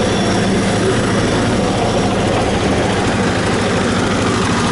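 Suzuki Burgman 125 fuel-injected scooter's single-cylinder four-stroke engine idling steadily.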